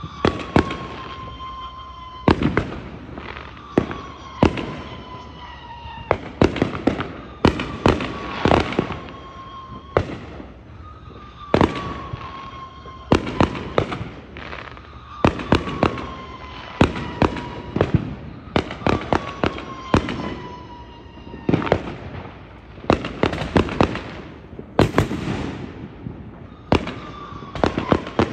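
Consumer fireworks going off nonstop in an irregular string of sharp bangs and cracks. Behind them a high tone, falling slightly in pitch and about a second and a half long, repeats every few seconds.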